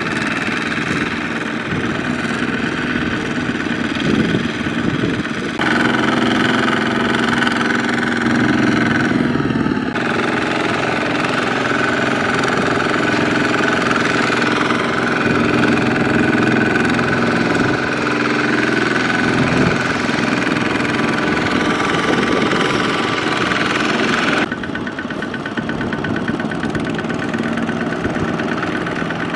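Single-cylinder diesel engines of two-wheel walking tractors, loaded and working through deep mud, chugging without a break. The engine note changes suddenly a few times where the clips change, and the pitch shifts up and down about a third of the way in.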